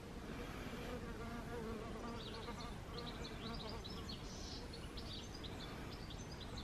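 A flying insect buzzing with a wavering hum for the first couple of seconds, then quick high chirps repeating through the rest, over faint steady garden background.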